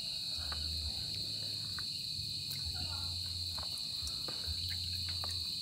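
Steady high-pitched trill of evening insects, with a few faint scattered ticks.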